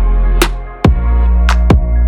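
Background electronic music with heavy bass and a steady drum beat, which briefly drops out just before a second in and then comes back in.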